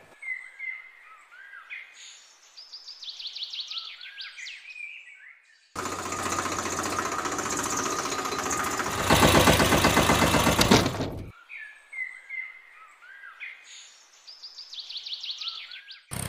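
Small birds chirping in quick high twitters. The same passage of chirps is heard twice, as a looped recording, and between the two a loud, steady noise fills about five seconds, growing louder around its middle.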